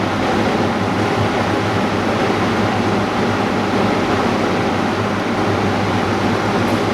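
Steady mechanical hum of running screen-refurbishing machinery, an even noise over a constant low drone.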